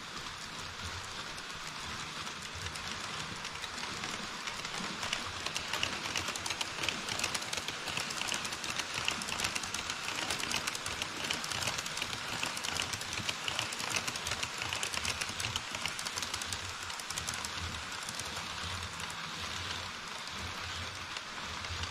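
HO-scale model trains rolling over KATO Unitrack: a steady rushing hiss of wheels on rail with rapid fine clicking. It grows louder through the middle as the E5 Shinkansen model passes, then eases as the container wagons follow.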